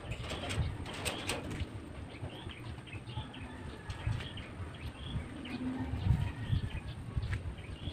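Small birds chirping repeatedly in short calls, over an uneven low rumble, with a few sharp clicks about a second in.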